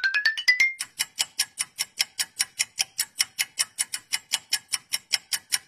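Clock-ticking sound effect. It opens with a quick run of ticks climbing in pitch, then settles into fast, even ticks at about five a second, marking time passing while the two men wait.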